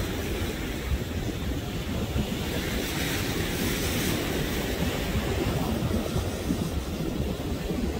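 Steady, low, crackling rumble of a Falcon 9's first-stage engines heard from miles away, mixed with wind on the microphone.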